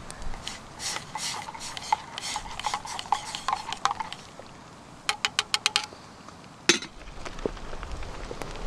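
Metal spoon stirring in a steel mug, scraping round the inside about three times a second with a ringing tone from the mug. About five seconds in comes a quick run of about seven taps on the mug, then one sharp knock.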